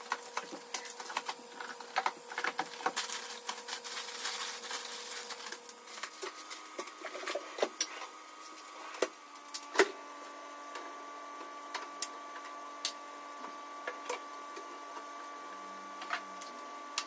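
Groceries being put away by hand: packets rustling and items, drawers and a refrigerator door knocking and clicking, with one sharper knock about halfway through. A steady hum runs underneath.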